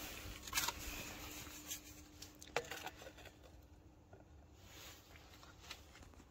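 A few light knocks and scrapes as plastic tubs are handled and set over glass beakers on an electric hotplate, over a faint steady hum. The loudest knock comes about half a second in.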